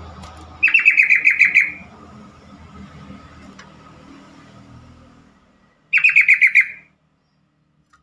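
Yellow-vented bulbul (trucukan) calling: two loud bursts of rapid chattering notes, each lasting about a second, the second coming about five seconds after the first.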